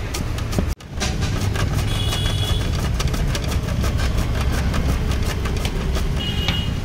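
Vegetables being sliced on a stainless-steel flat grater over an aluminium pot: quick, repeated scraping strokes of carrot and cucumber across the blade. Underneath runs a steady low, engine-like rumble, and the sound breaks off briefly just under a second in.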